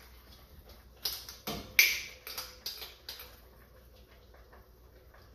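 Metal spoon clinking and scraping inside a ceramic mug as flour is stirred into broth to thicken a gravy: a quick run of sharp clicks starting about a second in, then only faint taps.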